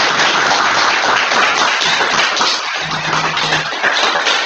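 A small audience of about a dozen people applauding with steady, dense hand-clapping.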